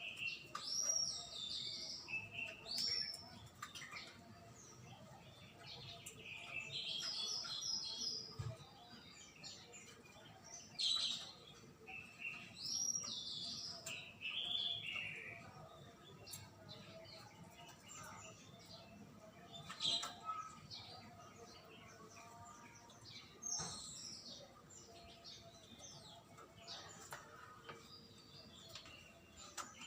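Birds chirping and calling: short, sweeping high notes in irregular bursts, busiest in the first half.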